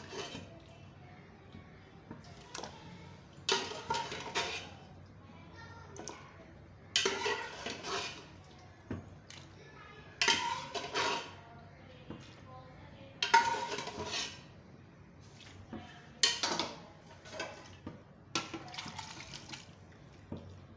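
A metal ladle clinking and scraping against a metal cooking pot as pieces of boiled beef trotters are spooned into thick masala gravy. It comes in about seven short clattering spells, roughly every three seconds.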